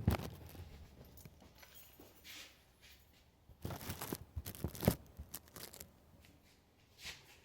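Faint, scattered rustling and scraping handling noises, with a cluster of them about halfway through and a short click near the end.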